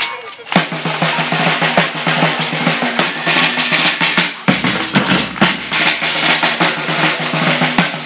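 Maracatu percussion ensemble breaking into a fast groove about half a second in: alfaia bass drums, snare drum rolls and beaded gourd shakers. The deep bass drum strokes grow heavier about halfway through.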